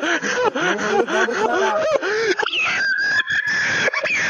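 A person's voice making a rapid string of short, high cries that each rise and fall in pitch. About halfway through comes one long, high, steady squeal, then more short cries.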